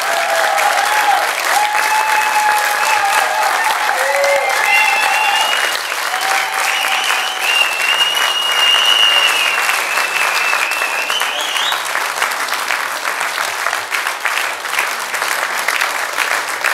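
Audience applauding steadily, with a few held tones over the clapping in roughly the first twelve seconds.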